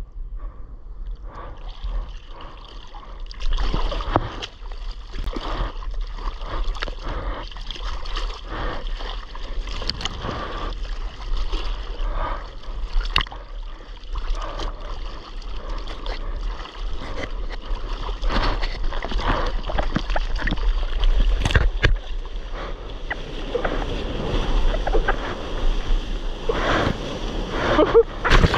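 Seawater splashing and sloshing close to the camera as a surfer hand-paddles his board through chop, with irregular splashes throughout and louder ones near the end.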